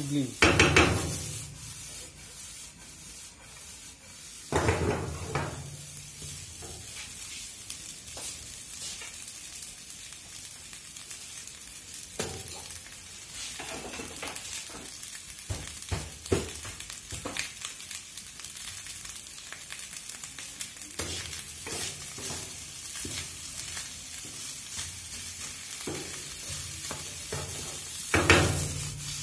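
Egg fried rice sizzling in a frying pan while a wooden spatula stirs and tosses it. There are louder stirring strokes about half a second in, again around four and a half seconds, and near the end.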